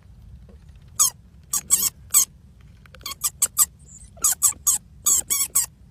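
A cornered wild mouse squeaking in distress: many short, high-pitched squeaks in quick clusters of two to four.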